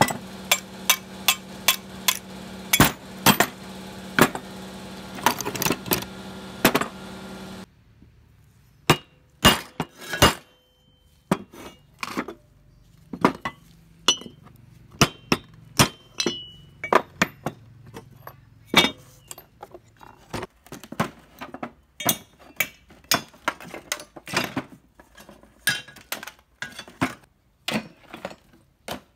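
Hand tools and metal parts clinking, tapping and knocking in irregular sharp strikes, some ringing briefly. A steady hum runs underneath for about the first eight seconds and stops suddenly.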